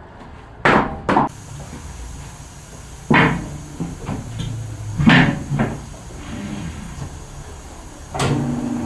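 Heavy knocks and clanks from tyre repair work, five of them spread a second or two apart, some with a short metallic ring, over a steady background hiss that starts about a second in.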